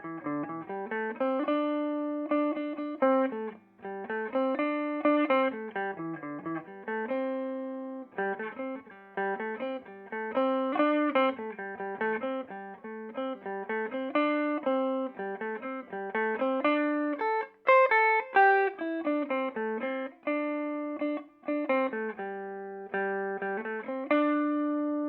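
Electric guitar played through a Peavey Bandit 112 TransTube combo amp on its clean channel in modern voicing, fed into the high-gain input. It plays a melodic line of picked notes, each ringing clean and fading before the next.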